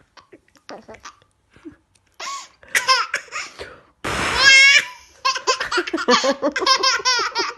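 Baby girl laughing in hearty belly-laugh fits: a short fit about two seconds in, then a longer run of quick repeated laughs from about four seconds on.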